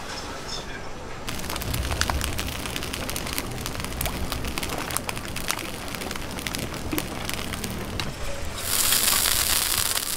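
Cooking oil crackling and spitting on a hot flat iron griddle, a dense run of small pops. A little before the end it turns into a louder steady sizzling hiss as oil spreads over the hot plate.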